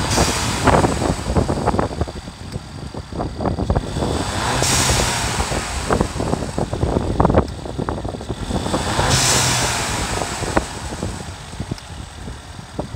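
Volkswagen 1.4 TSI twincharger engine running and revved twice, each rev with a rush of air about a second long, once about a third of the way in and again about two-thirds in: the newly fitted blow-off valve venting boost.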